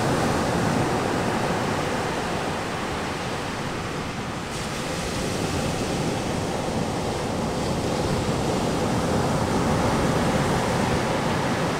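Ocean surf breaking and washing up a sandy beach: a steady rushing wash that eases a few seconds in and builds again.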